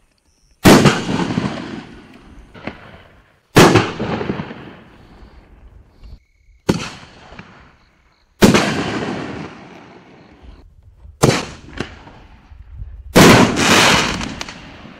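4-inch canister firework shells firing and bursting: about eight loud sharp bangs at irregular intervals, each trailing off with echo over a second or two. The sound cuts out abruptly twice.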